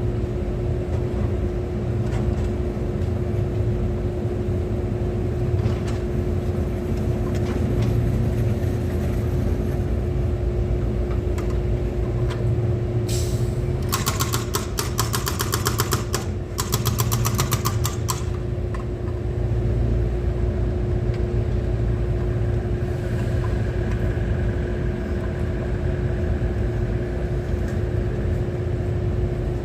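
Excavator's diesel engine running steadily, with a constant hum. About halfway through comes a few seconds of rapid, evenly spaced clicking, in two runs with a short break between them.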